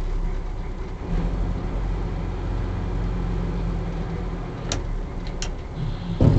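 Small river ferry's engine running with a steady low rumble under way. Two short clicks come near the end, then a heavy thump.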